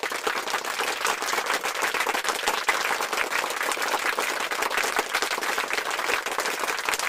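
Crowd applause: dense, steady clapping.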